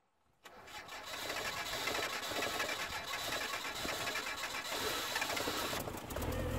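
1990 Mitsubishi Mighty Max pickup engine idling with the hood open: a steady, fast mechanical clatter that fades in about half a second in.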